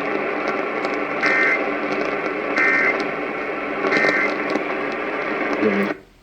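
AM radio static hissing, with three short digital data squawks about 1.4 seconds apart: the Emergency Alert System end-of-message bursts closing the severe thunderstorm warning. The radio audio cuts off suddenly about six seconds in.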